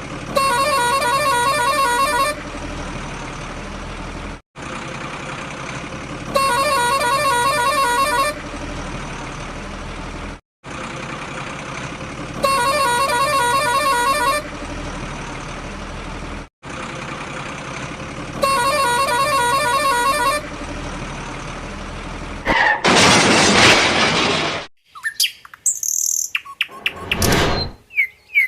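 Looped truck sound effect: a steady engine rumble with a two-second horn honk every six seconds, four times, the loop dropping out briefly between repeats. Near the end comes a loud rushing burst, then birds chirping.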